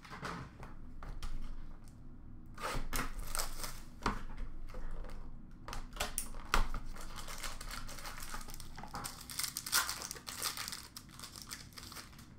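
Hands tearing open the packaging of a sealed hockey card box and crinkling its wrappers: scattered tears, rustles and light clicks.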